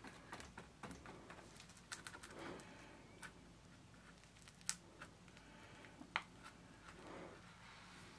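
Near silence with scattered faint clicks, taps and light rustles of hands working. The sharpest clicks come about four and a half seconds in and about six seconds in.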